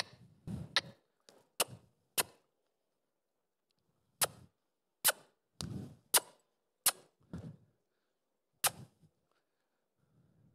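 A series of about a dozen sharp clicks, irregularly spaced. They come in two clusters, with a pause of about two seconds in between, and some are followed by a brief low rumble.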